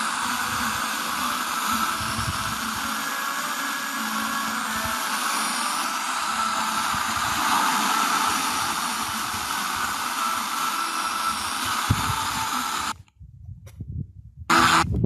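FM radio receiver hiss on a weak, barely received station during a band scan: a steady noisy hiss with no clear programme audio. About 13 seconds in it cuts out, and the next station's audio comes in loud just before the end.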